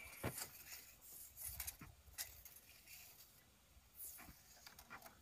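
Faint, scattered light clicks and clinks of a steel tape measure being handled and stretched along PVC pipe.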